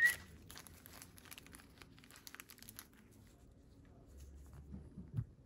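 Small plastic parts bags of O-rings crinkling and rustling as they are handled, with light scattered clicks, and a short high squeak right at the start.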